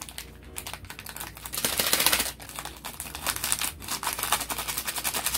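Plastic ramen seasoning packets crinkling and rustling as they are handled and shaken out over the pan: a dense run of crackles, loudest about two seconds in, that cuts off suddenly.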